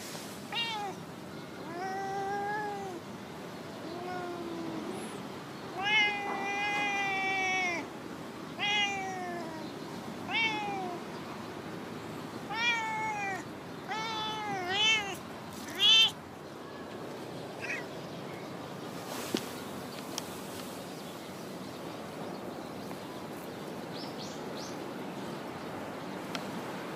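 Stray female cat meowing repeatedly, about ten meows, several long and drawn out, then falling quiet a little past halfway.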